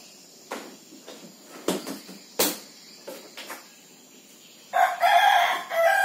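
A few separate knocks and clicks of handling, then a rooster crows loudly near the end, one long call that breaks briefly and falls in pitch at its tail.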